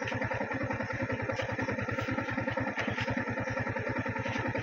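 Motorcycle engine idling steadily: an even, rapid low putter that holds the same pace throughout, with a few faint clicks over it.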